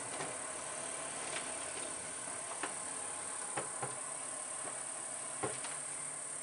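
Steady hiss of night-time ambience with a few scattered faint clicks; no thunder is heard despite the lightning.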